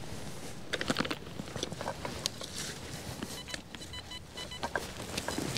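Spade cutting and scraping into dry soil with a few knocks, then, a little past halfway, an XP Deus metal detector giving a short run of repeated high beeps as its coil is swept over the hole: a target signal the detectorist judges promising.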